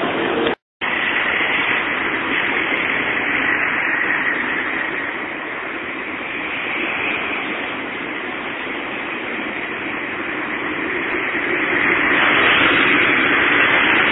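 Steady street traffic noise beside a tram line, growing louder near the end as a vehicle draws near. The sound drops out completely for a moment about half a second in.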